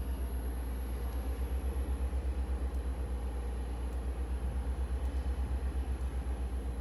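Low mechanical rumble, like a nearby engine or machine running, pulsing steadily about nine times a second, with a faint steady high whine.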